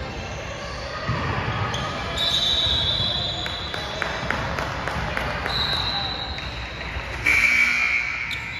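Basketball play in a gym: a ball bouncing on the court, with several high squeaks. The loudest squeak comes about seven seconds in.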